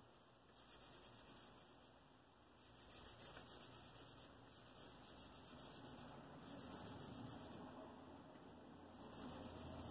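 Faint scratchy strokes of charcoal being worked on sketchbook paper, in several bursts of quick back-and-forth strokes.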